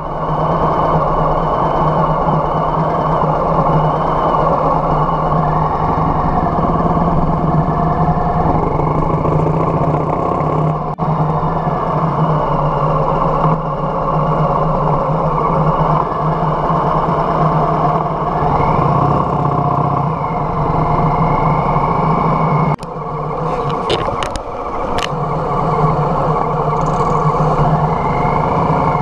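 Harley-Davidson Softail Heritage's V-twin engine running at road speed with wind rushing past the microphone. The sound drops briefly and sharply about 23 seconds in, as if the throttle is rolled off for a moment.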